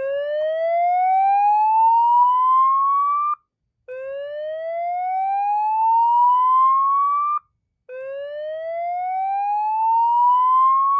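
Fire-Lite ACC-25/50 voice evacuation panel sounding its slow whoop alert tone through a Federal Signal 950I loudspeaker. Three rising sweeps, each about three and a half seconds long with a short break between. It is the fire alarm signal that precedes the recorded evacuation message.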